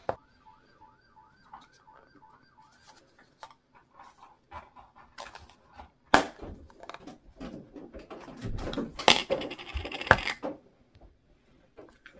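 Snap-on plastic lid of a Play-Doh tub being twisted and pried off, plastic scraping and creaking with sharp clicks. The loudest clicks come a little after six seconds and again between eight and ten seconds as the lid works loose.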